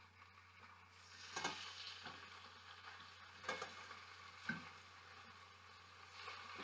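Chicken tenderloins frying in olive oil, a faint steady sizzle, with three short knocks in the pan about a second and a half, three and a half and four and a half seconds in.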